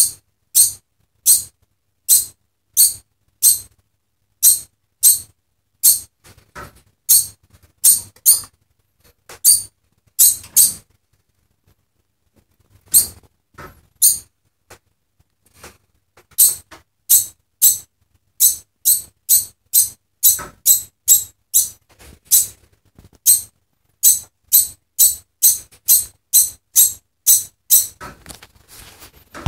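Degu barking: short, sharp, high-pitched alarm calls repeated about one and a half times a second. After a lull of a few seconds before the middle, the calls come faster, about two a second.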